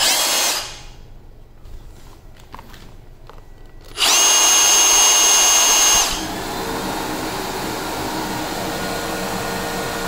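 Makita 40V XGT rotary hammer triggered for a moment, then run free for about two seconds with a high whine. As it stops, the Makita VC004GL cordless vacuum, started wirelessly by the tool through its auto-start link, keeps running with a steady lower hum.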